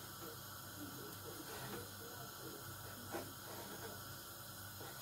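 Knife trimming fat off raw lamb chops on a wooden chopping board: faint cutting with a couple of soft knocks of the blade on the board, about two seconds and three seconds in, over a faint steady hiss and hum.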